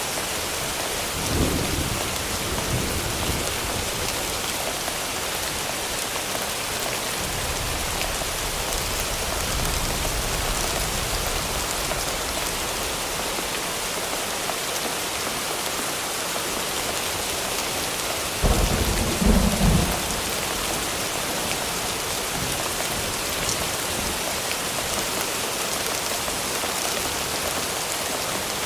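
Thunderstorm sound-effect track: steady, heavy rain throughout, with a short low rumble of thunder near the start and a longer rolling rumble about a third of the way in. About two-thirds of the way through comes a loud thunderclap, the loudest moment.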